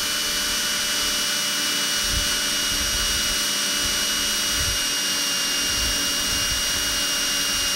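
Cordless drill running at a steady speed for several seconds as it bores through a metal part, a long continuous whine that winds down right at the end as the hole goes through.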